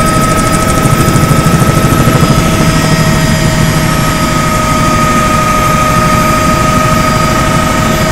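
Helicopter in flight heard from inside the cabin: steady engine and rotor noise with a fast low beat from the rotor, under a constant high whine.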